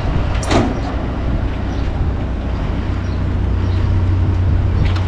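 Heavy earthmoving vehicle's diesel engine running steadily, a low drone, with one brief sharp sound about half a second in.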